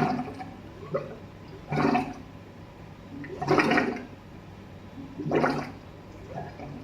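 Plumbing gurgling in repeated surges, four loud ones about two seconds apart with smaller gurgles between, over a steady low hum.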